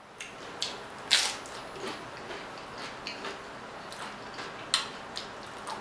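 Close-up chewing of loaded tortilla-chip nachos: a scatter of short crunches and wet mouth clicks, the loudest about a second in.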